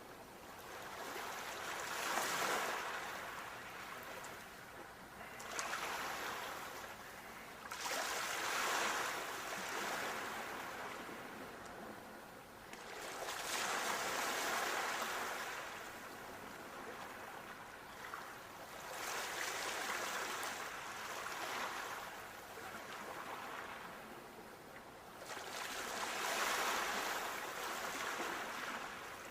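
Sea waves breaking and washing on the shore, about five in turn: each swells up and falls away, roughly one every six seconds.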